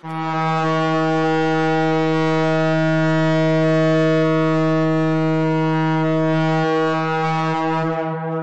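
A long, steady horn blast on a single low note, starting suddenly and held for about eight seconds before fading away near the end.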